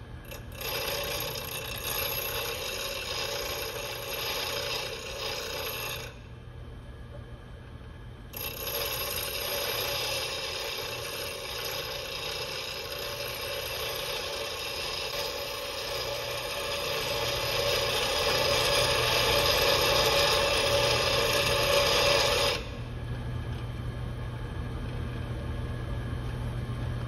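Bench grinder running with a steady hum while a cold chisel is held against the grinding wheel: a long grinding hiss of about five seconds, a pause of about two seconds, then a second pass of about fourteen seconds. After the second pass only the grinder's motor keeps running.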